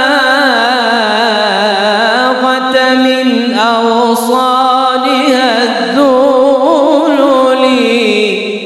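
A man's solo voice singing an Islamic ibtihal (devotional supplication). He draws out long wordless melismatic phrases with wavering ornamental turns, and the voice fades out near the end.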